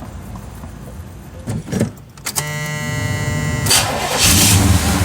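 Chevy Vortec 350 V8 cold-started: the starter whirs for about a second and a half, then the engine catches about four seconds in and runs, still on choke, on fresh intake manifold gaskets.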